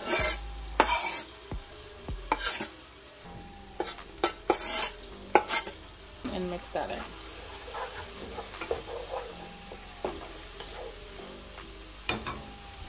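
Chopped onion, scallion and hot pepper sizzling in hot oil in a frying pan, with the knocks and scrapes of a wooden cutting board and stirring against the pan, most of them in the first half.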